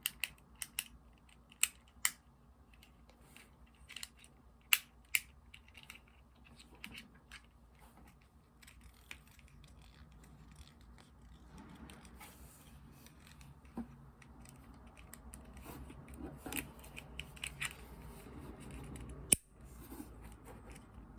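Plastic fidget toys being clicked and fiddled with: a run of sharp clicks in the first few seconds, then quieter rubbing and light clicking, with one sharp click near the end.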